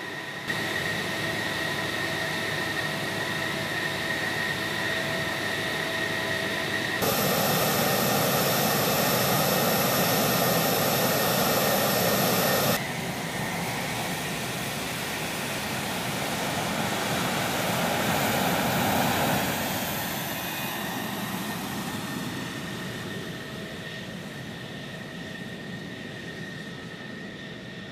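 F-16 Fighting Falcon jet engine running with a steady high whine. The sound jumps louder about a quarter of the way in, drops suddenly a few seconds later, then fades near the end as the jet moves off.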